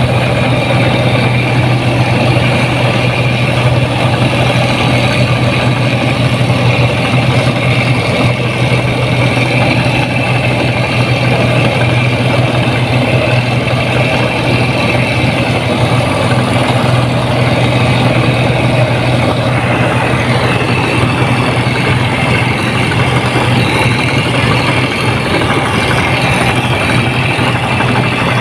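Rice combine harvester's diesel engine running steadily with a strong low hum and machinery noise.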